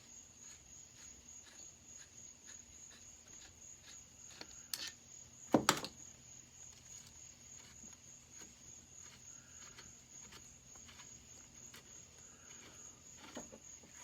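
Steady, evenly pulsing high chirping of crickets, with a lighter click and then a sharp knock about five seconds in as the chainsaw's handle is worked loose by hand.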